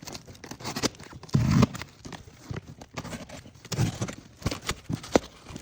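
A shipping box being handled and opened by hand: irregular knocks and clicks, with a couple of heavier thumps and some rustling of the packing.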